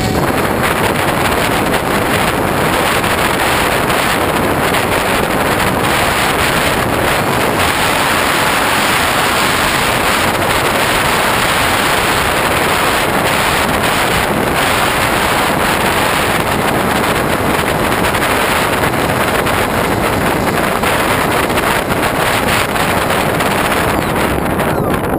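Loud, steady rush of wind over a GoPro camera riding on a Hobbyking Bixler RC model plane in flight, with no pitch changes or breaks.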